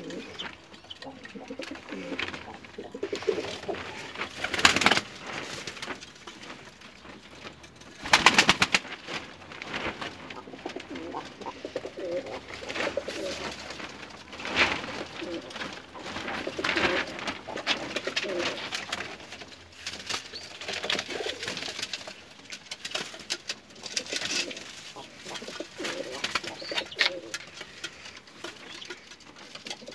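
Domestic crested pigeons (öntepe and çifttepe) cooing over and over. Two loud, brief rustling noises come about five and eight seconds in.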